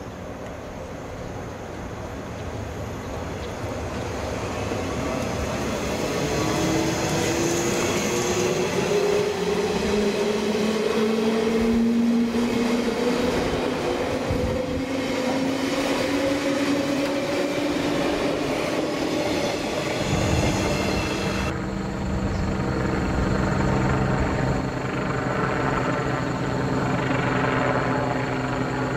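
JR East 189 series electric train pulling away and running past, its traction motors whining and rising steadily in pitch as it gathers speed, over the rumble of wheels on rail. About two-thirds of the way through the sound changes suddenly to a steady low hum from the train at another platform.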